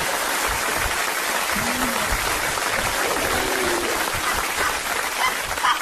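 Audience applauding steadily in a hall, an even wash of clapping that fades as the performers resume speaking.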